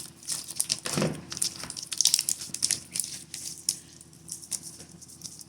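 Homemade Elmer's glue slime being kneaded by hand: a run of irregular small sticky clicks and crackles that thins out toward the end.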